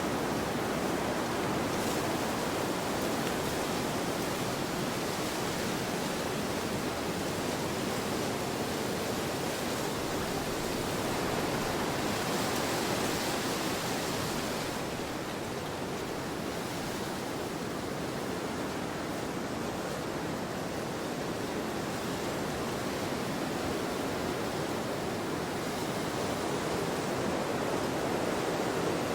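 Wind blowing steadily, swelling in a gust about halfway through and then easing.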